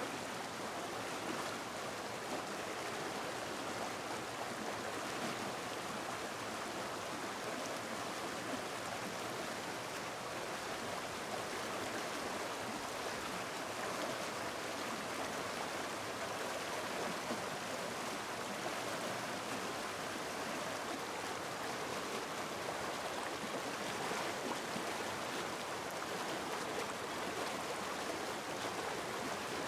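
Mountain stream rushing steadily over rapids.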